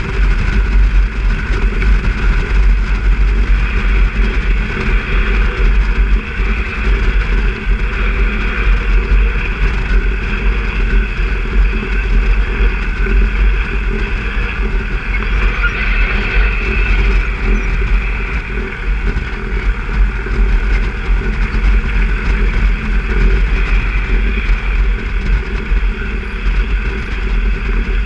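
Single-engine light aircraft's piston engine and propeller running steadily at low power while the plane taxis on grass.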